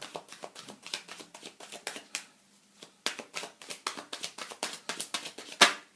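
Tarot cards being shuffled and handled by hand: a run of quick, irregular papery flicks, with a brief lull about two and a half seconds in and a sharper snap near the end.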